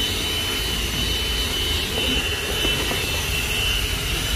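Agaro CV1077 handheld car vacuum cleaner running steadily with a high whine as its nozzle is passed over a rubber boot mat.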